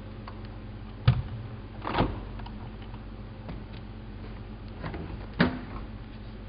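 Elin WM26AAA washing machine giving a steady low hum, with a few scattered knocks and thumps. The sharpest knocks come about a second in and again about five seconds in.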